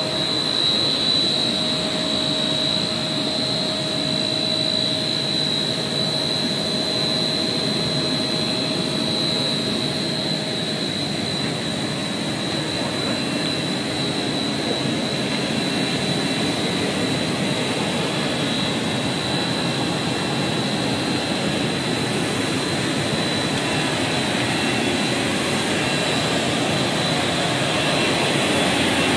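PET monofilament extrusion line running under test: a steady machinery drone of motors and drives with a constant high whine. A lower hum fades out about a third of the way through.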